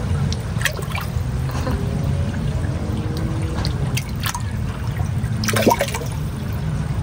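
Koi pond water trickling, a steady low rush with a few brief sharper sounds over it.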